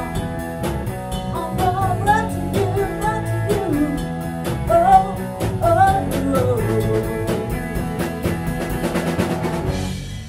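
Rock band playing live: a sung lead vocal over electric guitar, bass and a drum kit with dense cymbal and drum hits. The singing drops out a few seconds before the end, and the band then stops together right at the end, the sound dying away within a second.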